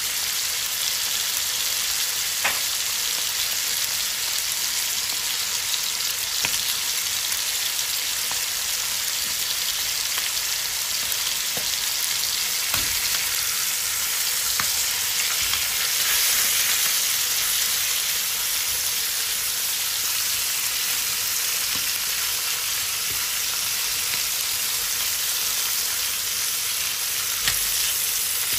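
Chicken thigh pieces frying in oil in a hot pan, with a steady sizzle and a few light clicks. Near the end a spatula knocks against the pan as it turns the pieces.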